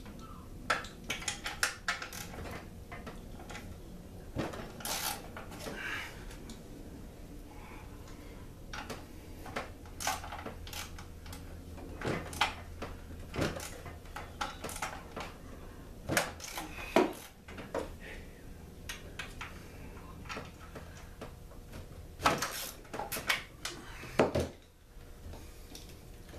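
Irregular clicks, clinks and knocks of hands handling tools and parts of a partly dismantled two-stroke generator.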